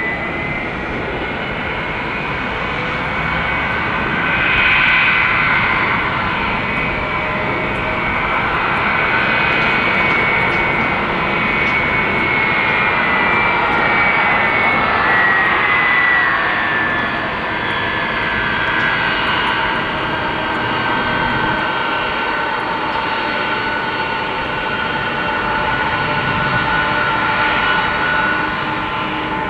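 Four jet engines of a Boeing 747 freighter running at taxi power: a steady rushing jet noise with high whining tones that drift slowly lower in pitch through the second half.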